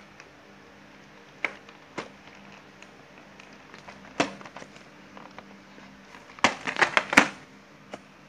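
Plastic window and cardboard of a boxed toy train package crackling and clicking as it is handled and turned over: a few single clicks, then a quick flurry of crackles near the end.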